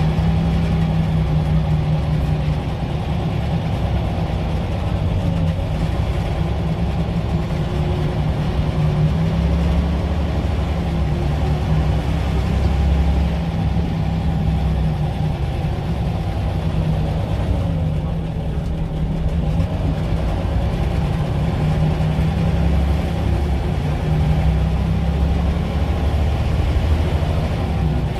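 Scania L94UB single-decker bus's diesel engine running as the bus drives along, heard from inside the passenger saloon: a steady low hum whose deepest part swells a couple of times, about ten seconds in and again near the end.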